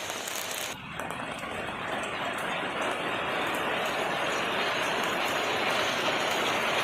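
Heavy rain pouring down in a steady hiss, with a brief dip about a second in, then gradually growing louder.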